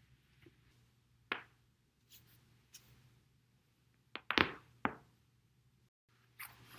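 Back cracking on a foam roller: the spine's joints popping, one pop about a second in, then a quick run of several louder cracks a little past four seconds and one more half a second later.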